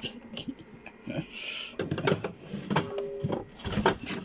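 Irregular clinks, knocks and rattles of cans and food items being shifted about inside an open refrigerator, with a brief steady tone about three seconds in.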